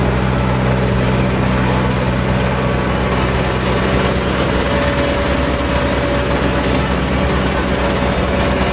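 Road roller engine running steadily: a deep, even hum with a wash of noise over it that does not change.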